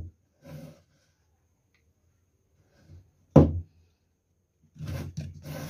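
Handling knocks of a plastic power-tool battery pack and clip-on voltage meter on a wooden bench. One sharp knock comes about three and a half seconds in, followed near the end by a run of scraping clicks as the meter is fitted to the battery terminals.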